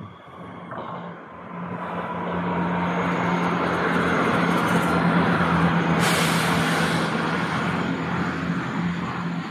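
Northern passenger multiple-unit train passing close by: wheels rumbling on the rails over a steady hum and a slowly falling whine, building up over the first few seconds and loudest midway. A brief hiss cuts in about six seconds in.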